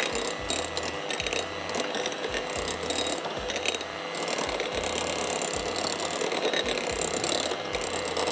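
Electric hand mixer running steadily, its twin beaters whipping cream for a mocha icing in a glass bowl.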